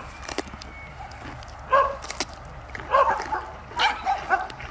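A dog yipping in short, high barks: a few spaced ones at first, then a quicker run near the end. Two sharp clicks fall between them.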